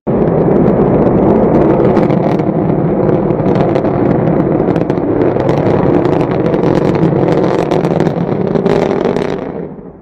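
Rocket engine roar, a loud steady rush full of crackles, starting suddenly and fading out near the end.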